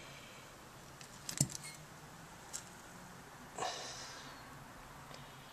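Faint, sparse handling noise from the parts of a cut-open reciprocating compressor: a quick cluster of light metal clicks about a second and a half in, a single click a second later, and a short rustle about halfway through.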